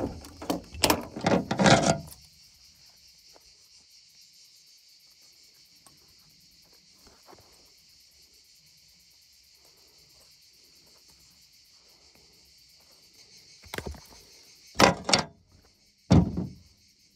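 Handling noise from a rubber stovepipe roof flashing being worked down over a pipe: a burst of rubbing, squeaks and knocks in the first two seconds, then a few more knocks near the end as it is lifted and handled. A faint, steady, high-pitched insect buzz runs underneath.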